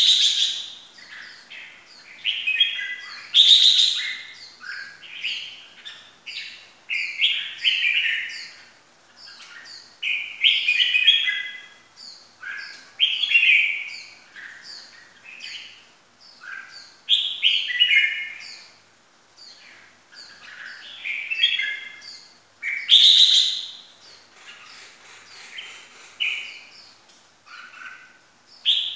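Red-whiskered bulbul singing: short, loud warbled phrases every two to three seconds, with quieter chirps between them.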